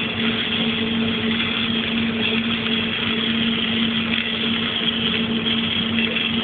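Engine-driven welding machine running at a steady pitch, with a constant hiss over it, at a flux-cored (Innershield) welding test.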